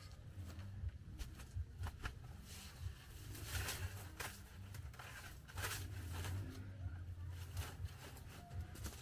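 Rustling and crinkling of banana leaves and a woven mat as the mat is spread out and smoothed flat by hand, with irregular soft crackles and a couple of longer rustles, over a low steady hum.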